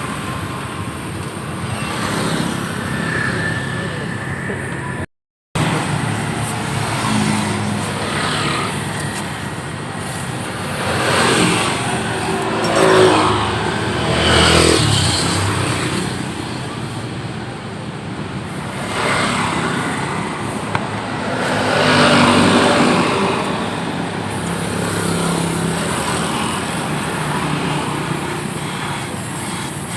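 Street traffic with motor vehicles passing by, several swelling and fading as they go past, over a steady background rumble. The sound drops out completely for a moment about five seconds in.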